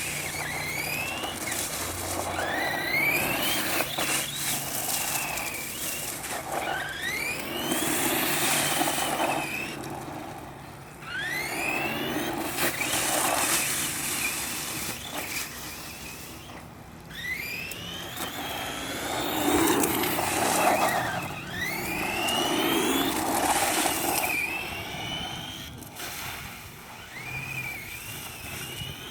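Brushless electric motor of a Redcat Volcano EPX Pro RC monster truck whining up in repeated bursts of acceleration, about every few seconds, with tyre and drivetrain noise swelling in each run.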